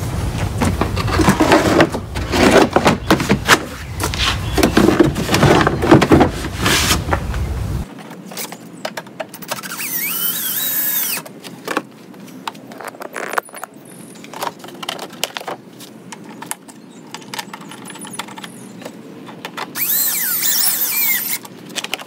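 Rapid clicking and clatter of a hand ratchet with an 8 mm socket driving in the bolts that hold the cargo shelf, along with knocks from handling the shelf and tools. Brief high squeaks come twice, about ten seconds in and near the end.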